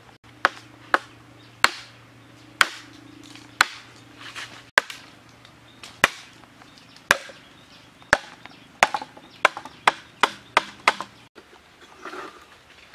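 Machete blade chopping into a green bamboo pole: a series of sharp chops, about one a second at first and coming faster, about two or three a second, near the end.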